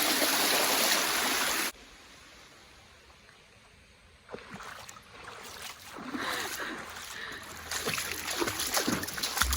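Steady rush of creek water that cuts off abruptly just under two seconds in. Then a quiet stretch, followed by scattered splashes and sloshing in shallow water that grow busier near the end.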